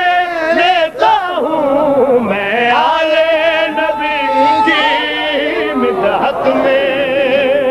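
A man singing a qaseeda, a devotional Urdu poem, drawing the words out in long held notes that waver and slide between pitches.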